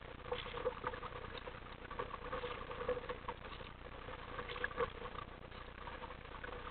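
Sea water splashing and lapping against the plastic hull of an RTM Mambo sit-on-top kayak as it is paddled: a steady patter of small splashes and drips, with a few louder slaps.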